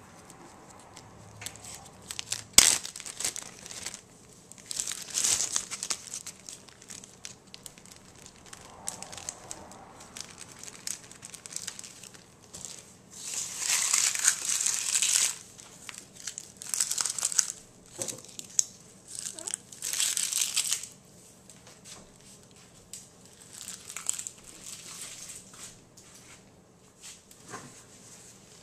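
Dry, papery onion skins crinkling and rustling in several separate bursts as a hand handles them, the longest lasting about two seconds halfway through. A single sharp knock about two and a half seconds in is the loudest sound.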